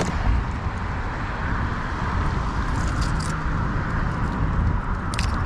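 Steady wind rumble on the microphone over open water, with a few faint clicks from handling the spinning rod and reel.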